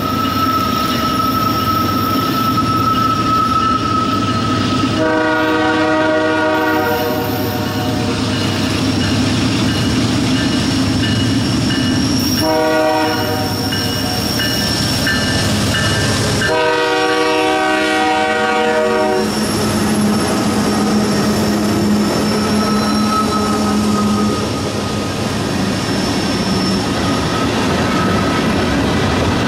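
A diesel freight locomotive sounds its multi-note air horn three times, a long blast, a shorter one and another long one, as it approaches, then its engine goes by and a string of loaded tank cars rolls past with a steady rumble and clicking wheels.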